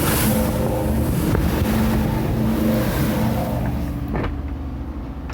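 A motor yacht's engine running steadily under way, with wind buffeting the microphone and the hiss of rough water. About four seconds in there is a single knock, and the wind and water noise then fades.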